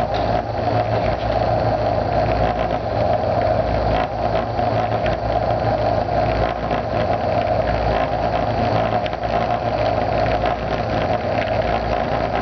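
A loud, steady buzzing drone with a strong mid-pitched band and a low hum underneath, unchanging throughout.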